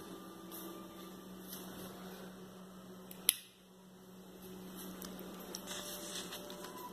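Quiet room tone with a steady low hum, broken by a single sharp click about halfway through.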